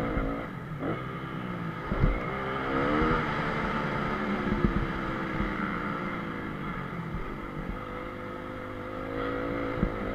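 Honda CRF250R motocross bike's single-cylinder four-stroke engine revving up and down as it is ridden hard, its pitch climbing and dropping several times. A few sharp knocks come through along the way.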